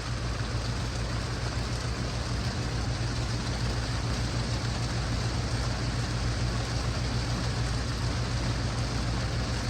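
Heavy rain falling steadily, an even hiss with a constant low rumble underneath.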